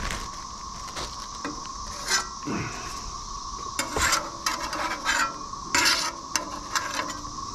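Metal spatula scraping across the steel top of a Blackstone flat-top griddle in a few short strokes spread over several seconds, over a steady background hiss.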